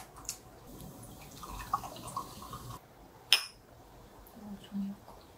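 Drink being poured into a glass, then a single sharp clink of glass a little over three seconds in.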